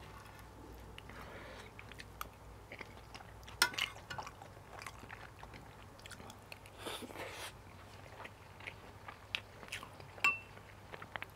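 Close-miked eating: a metal spoon scraping and clicking on a plate, with chewing of rice and fried pork in between. A sharp clink of the spoon on the plate rings briefly near the end.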